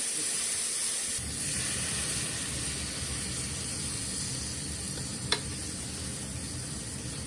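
Food sizzling steadily in a frying pan, with one sharp click a little past the middle.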